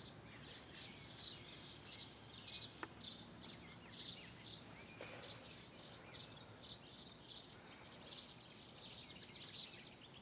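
Faint, high-pitched chirping outdoors, repeating about three to four times a second.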